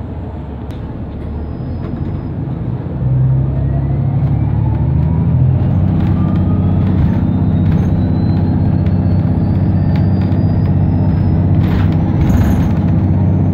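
Inside a New Flyer XDE60 diesel-electric hybrid articulated bus as it pulls along: the drivetrain drone gets louder about three seconds in, and a whine from the electric drive climbs steadily in pitch as the bus gathers speed. A short hiss of air comes near the end.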